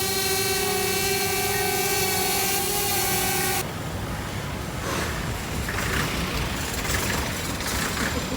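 A small quadcopter drone's propellers whining in a steady hover, one held tone with overtones. It cuts off abruptly about three and a half seconds in, leaving a rushing outdoor noise.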